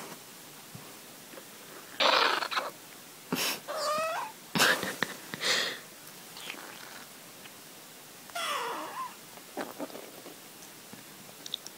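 A dog's stomach gurgling, the belly noises coming in a string of loud separate bursts: a rushing gurgle about two seconds in, a wavering squeal around four seconds, more gurgles after it, and a falling squeak near nine seconds.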